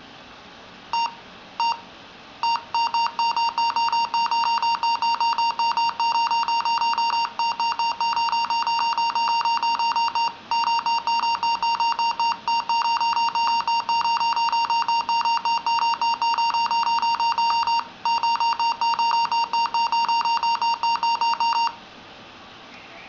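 Dell Inspiron N5050 laptop beeping: two single high-pitched beeps, then the same beep repeated rapidly, several times a second, with a few brief breaks, cutting off suddenly near the end. An unexplained fault beep that started out of the blue; the laptop works normally once it stops.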